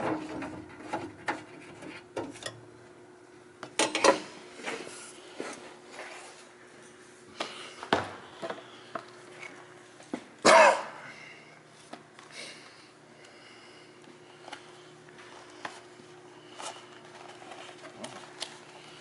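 Scattered knocks, clicks and clatter from parts and tools being handled, with two louder knocks about four and ten seconds in, over a steady low hum.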